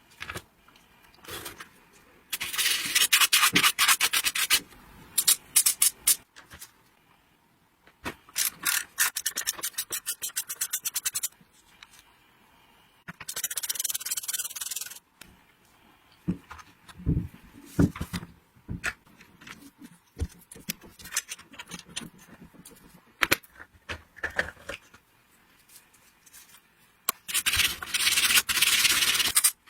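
Hand work rubbing and scraping on a rusty chainsaw's parts, in four bursts of a few seconds each. Quieter clicks and knocks of handling come between the bursts.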